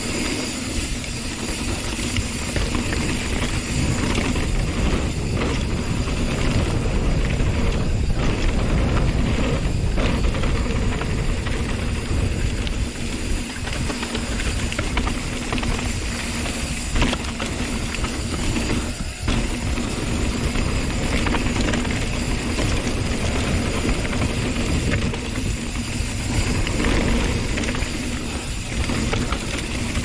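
Wind rushing over the microphone and tyres rolling on a dirt trail as a hardtail mountain bike descends at speed, with the bike rattling and knocking over bumps now and then.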